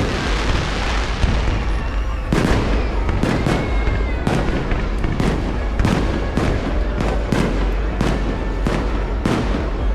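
Aerial fireworks going off: one bang with a long fading echo, then from about two seconds in a rapid string of sharp bangs, two to three a second, over a constant low rumble.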